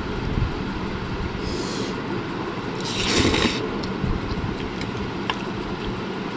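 Steady low background rumble, with a short loud hiss about three seconds in, a fainter one shortly before it, and a few faint clicks.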